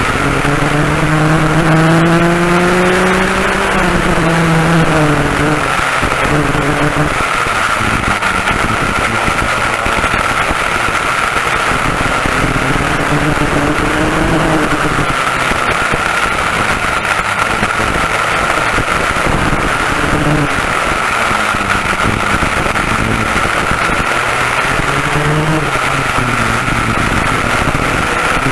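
Twin West Bend 820 two-stroke kart engines running flat out under race load, their pitch climbing as the kart accelerates and dropping when it backs off, several times over. A steady high whine sits underneath.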